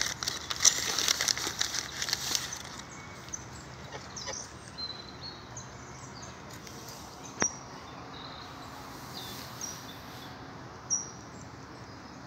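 A burst of rustling for the first two seconds or so, then quiet outdoor background with short, high chirps of small birds scattered through it and two sharp clicks, one past the middle and one near the end.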